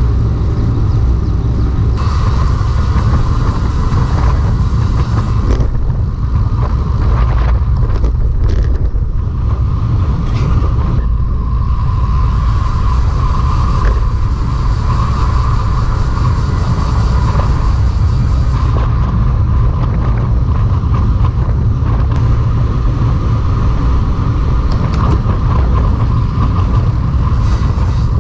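Steady wind rumble on the microphone of a camera riding on a road bicycle.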